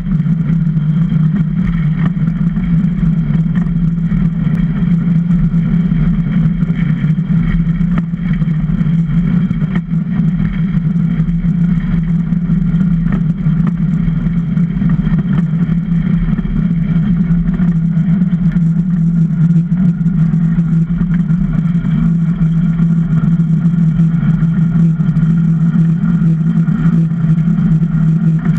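Super DN iceboat sailing over smooth lake ice, its steel runners making a loud, steady hum that carries through the wooden hull.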